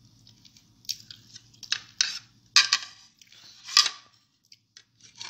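Cutlery scraping and clinking on a nearly emptied plate in a handful of short, sharp strokes.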